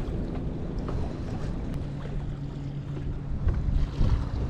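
Wind buffeting the microphone on a bass boat, with choppy water against the hull. A steady low hum comes in about two seconds in, typical of the bow-mounted electric trolling motor holding the boat over a brush pile.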